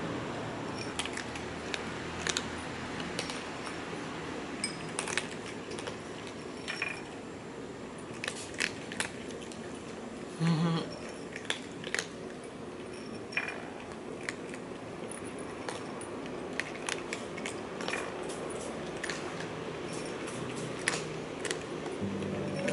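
Domestic cats crunching dry kibble: irregular crisp clicks of chewing and of kibble knocking on a glass dish, over a steady low background hum. A brief low pitched sound comes about halfway through.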